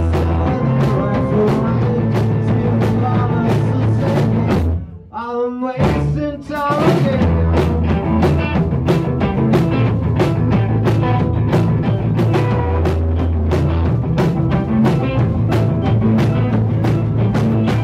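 Rock band playing live: drum kit, electric bass and electric and acoustic guitars. About five seconds in the band stops briefly, leaving one wavering melodic line alone, then the full band comes back in.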